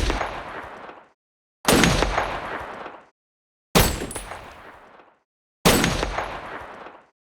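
Rifle gunfire sound effects: four sharp shots about two seconds apart, each with a fading tail of about a second.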